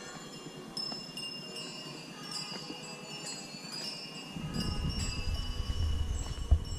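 Tinkling metallic chimes: several bright ringing tones struck at irregular moments, overlapping as they fade. About four seconds in, a low rumble joins them.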